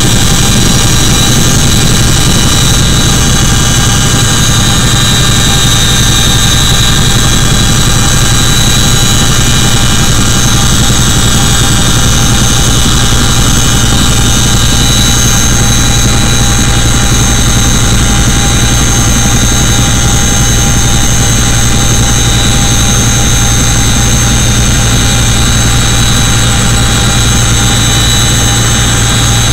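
CH-47 Chinook helicopter heard from inside its cabin: the very loud, unbroken drone of its twin turboshaft engines and tandem rotors, with several steady high whines over a deep low hum.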